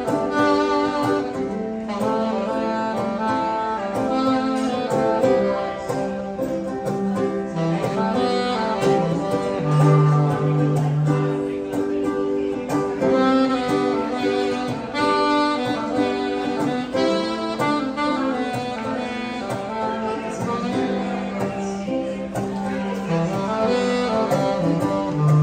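Live saxophone and acoustic guitar duo playing a jazzy tune, the saxophone carrying a melody of long held notes over the strummed guitar.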